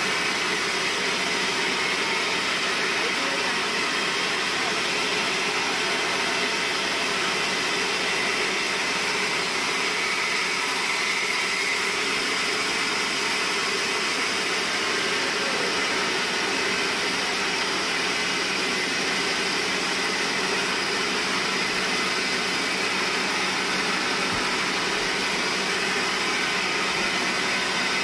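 Sawmill band saw running steadily, an even, unbroken machine noise with no pauses or changes.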